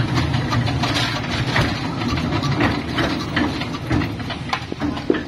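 Single-cylinder horizontal diesel engine of a concrete mixer running with a steady low chugging and a clattering knock, having just been started with a hand crank.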